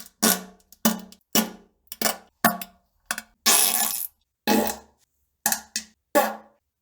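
A rapid string of about a dozen short fart sounds with silence between them. Each one starts suddenly and fades out. One near the middle runs longer, about half a second.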